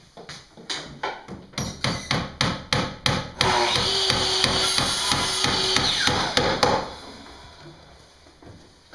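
Hammer strikes, about three a second, for a few seconds, followed by a power tool running steadily for about three seconds while kitchen cabinet boxes are fastened together.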